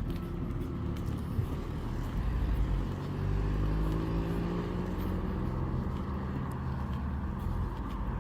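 A car engine running, rising in pitch for a few seconds as the car speeds up.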